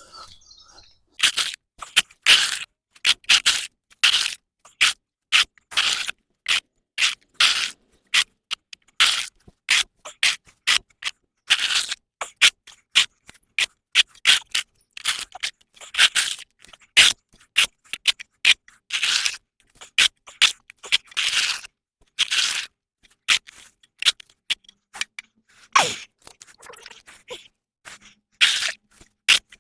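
A hand tool scraping mud and wet leaves off a path surface in short, repeated strokes, about one or two a second.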